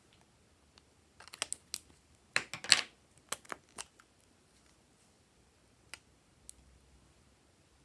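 Lipstick tubes and caps clicking as they are handled and uncapped: a quick run of sharp clicks from about a second in, the loudest near the middle, then two faint ticks later.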